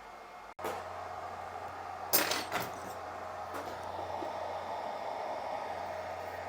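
Steady hiss of a hot-air rework station blowing, with a low electrical hum. About two seconds in come two sharp clacks of a tool being handled on the bench, and a lighter one a second later.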